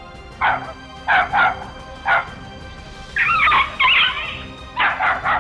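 Small dog yapping: short, high, sharp barks, singly and in quick pairs, with one longer wavering yelp a little past the middle, over steady background music.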